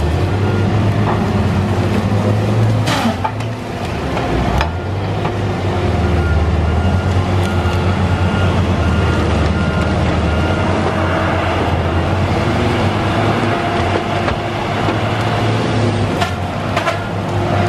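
Tigercat LX830D tracked feller buncher working at full throttle, its diesel engine running in a steady low drone as it cuts trees, with a few sharp cracks of wood and branches.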